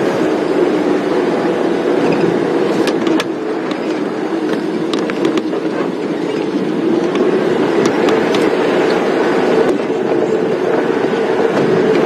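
Safari game-drive vehicle driving on a rough dirt road: steady engine and road noise, with scattered sharp knocks and rattles.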